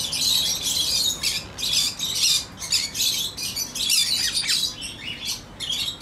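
Many caged pet birds chirping together, a dense run of high, overlapping calls with no break.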